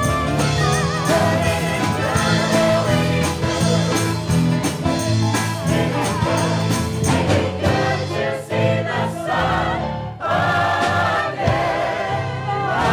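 Stage-musical chorus singing a gospel-style number over a band with a steady beat. About ten seconds in the music dips briefly, then the voices hold a long sustained chord.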